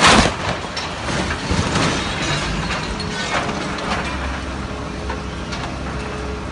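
A crawler crane toppling over the edge of an excavation with its suspended load: a loud crash right at the start, then a continuous rough rumble with scattered metal clanks as the machine and its lattice boom settle against the pit wall.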